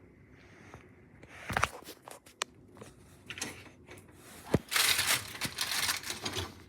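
Handling noises from a new dishwasher and its packaging: crinkling and rustling, with scattered clicks and a couple of sharp knocks, one about a second and a half in and one near four and a half seconds.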